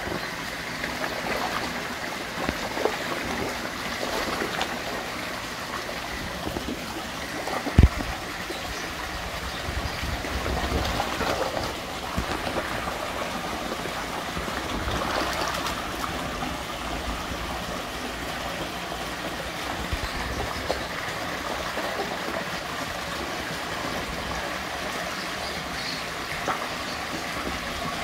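Pond water splashing and gurgling steadily as a crowd of koi churn the surface at the edge. There is a single sharp thump about eight seconds in.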